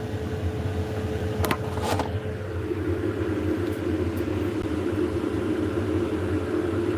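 A steady mechanical hum over a low rumble, with two sharp clicks about one and a half and two seconds in; the hum's pitch shifts a little lower about halfway through.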